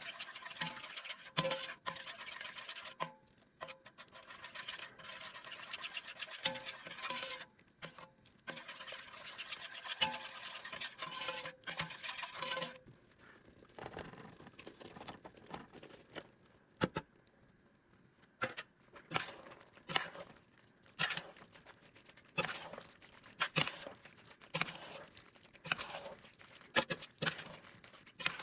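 Cooking sounds: a dense crackling, scraping texture for about the first twelve seconds, then it drops away to separate clicks and knocks of a utensil against cookware, about one a second.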